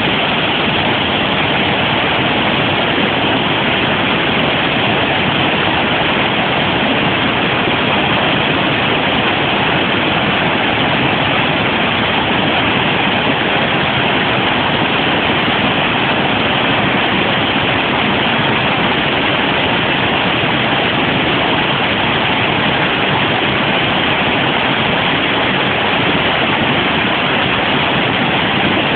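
Steady, loud roar of river water pouring over low rock ledges in white-water rapids.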